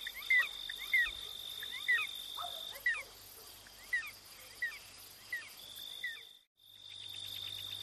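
Faint night ambience of crickets: a steady high trill with short, quick chirping calls one or two a second. It cuts out briefly about six seconds in, then the trill returns.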